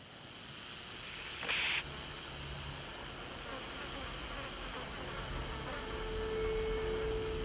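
Insects buzzing over a low rumble that grows louder, with a short sharp burst about a second and a half in and a steady hum near the end.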